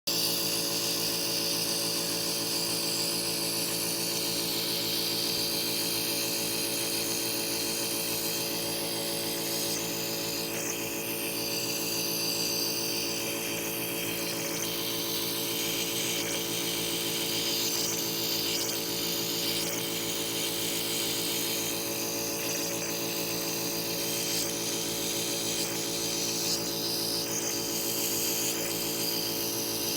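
Nebulizer's electric piston compressor running with a steady buzzing hum, a hiss of air and mist above it, during a treatment for a cough.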